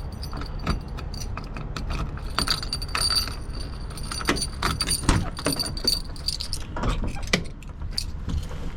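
Keys jangling with scattered clicks and knocks in the cab of an International 4800 truck as someone tries to start it, with a high tone sounding on and off. No engine catches.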